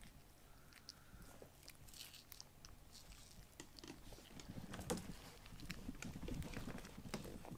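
Kittens eating food from a bowl: faint, irregular chewing clicks that come thicker about halfway through.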